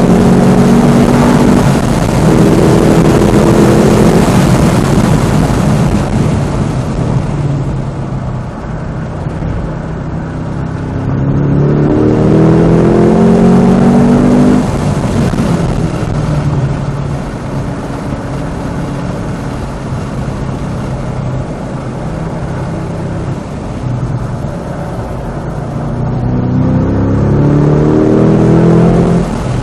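Cadillac CT5-V Blackwing's supercharged 6.2-litre V8 pulling hard on track, its pitch climbing through the revs three times with an upshift break early on, and lifting off to a lower drone between the pulls.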